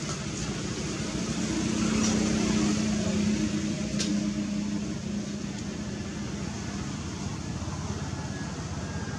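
Steady background noise with a low hum that swells about a second and a half in and fades about five seconds in. A single sharp click comes about four seconds in.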